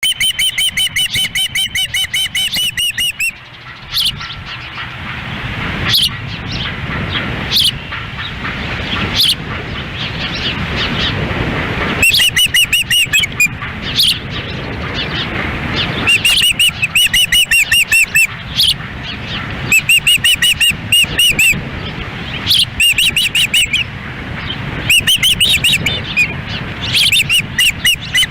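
Ospreys calling in bouts of rapid, repeated high chirps, each run lasting a second or two with single calls between, over a steady rumble of wind on the microphone.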